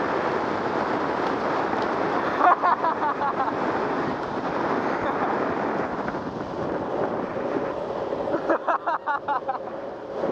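Steady rush of wind over the microphone mixed with urethane longboard wheels rolling on asphalt at downhill speed, easing a little about halfway through. Two short bursts of a voice cut in, about two and a half seconds in and near the end.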